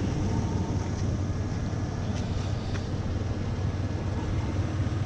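A 2000 Toyota 4Runner's engine idling, a steady low hum.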